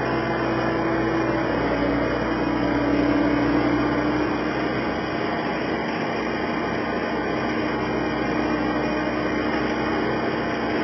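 Skid steer loader engine running steadily, with a steady tone that drops slightly in pitch about a second and a half in.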